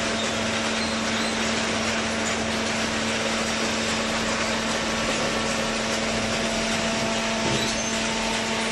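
Vertical cardboard baler's hydraulic power unit running steadily: a constant hum with a steady hissing noise over it.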